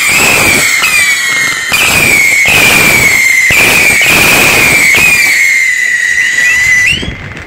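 Firework on the ground firing whistling shots about once a second over crackling. Each shot sets off a high whistle that slides slightly down in pitch. The firing ends about seven seconds in with a short rising whistle.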